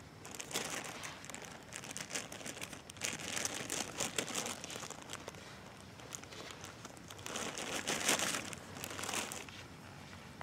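Irregular crinkling and rustling, louder in bouts about half a second in, from about three to five seconds in, and again around eight seconds.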